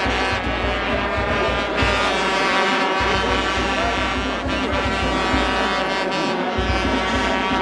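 Festival music of long held horn-like tones, several sounding together in a steady drone.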